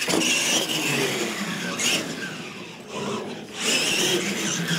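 Electric R/C monster truck accelerating hard, its motor and gears whining and rising in pitch as it speeds up. The sound dips a little past the middle, then comes back up near the end.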